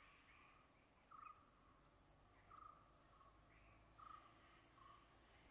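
Near silence: faint forest ambience of a steady high insect drone, with short faint bird chirps about once a second.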